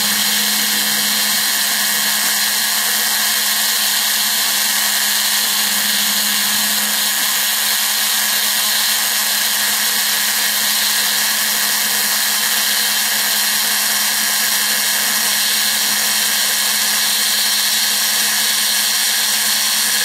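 CNC router spindle running steadily while its small end mill cuts a pocket in foam: a steady high hiss over a constant low hum.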